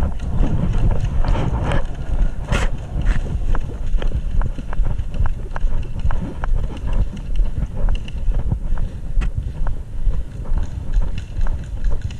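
Footsteps at a steady walking or jogging rhythm, over low wind rumble on the microphone, with scattered sharp clicks and one louder crack about two and a half seconds in.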